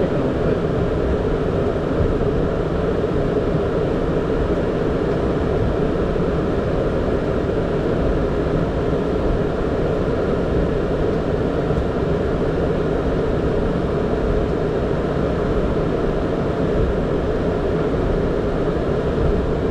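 Steady cockpit noise of a Boeing 767 taxiing after landing, an even low hum with no change in level.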